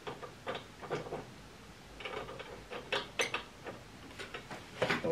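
Gearing of a wooden reproduction Antikythera mechanism clicking as its side knob is turned by hand, in short irregular clicks with the loudest near the end.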